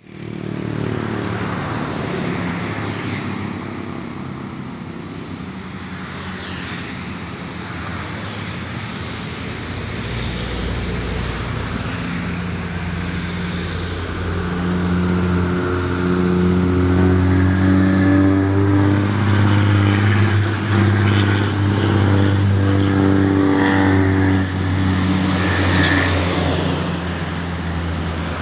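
Old Mitsubishi Fuso truck's diesel engine labouring uphill under a heavy load: a steady low drone that grows louder about halfway through.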